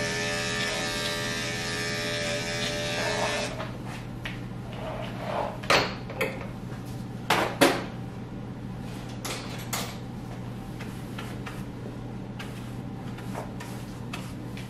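Electric dog-grooming clipper running with a steady hum, switching off about three and a half seconds in. A few short knocks and clicks follow.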